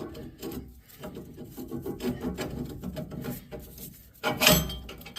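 Metal scraping, rubbing and clicking as new rear U-bolts are worked into place over the leaf spring, with one louder clank about four and a half seconds in.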